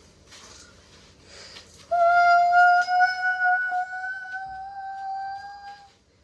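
A single high, whistle-like tone held steady for about four seconds, creeping slightly up in pitch, after about two seconds of soft rustling.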